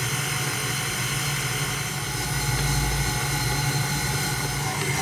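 KitchenAid stand mixer's motor running steadily at low speed, its dough hook turning through flour, with a short low rumble about halfway through.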